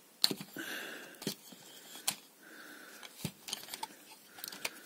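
Plastic clicks and light knocks from a Transformers action figure being handled as its parts are moved and snapped into position. The sharpest click comes about a quarter of a second in.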